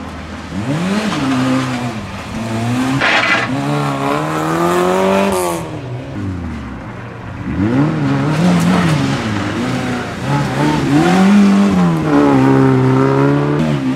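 Two rally hatchbacks, one after the other, drive through a hairpin at full competition pace. Each engine revs up, drops back as the driver brakes and changes gear, then rises again as the car accelerates away.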